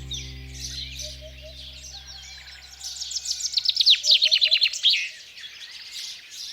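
Small songbirds chirping and calling, with one bird singing a fast run of sharply falling notes about three seconds in, the loudest part. A held music chord fades out over the first two seconds.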